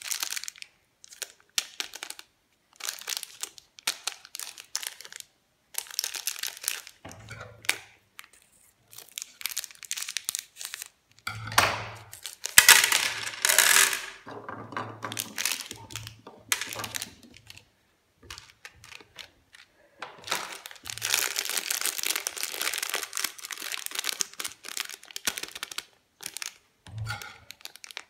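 Plastic candy wrappers crinkling and tearing open in short bursts, with small hard-coated chocolate candies clattering onto a plate.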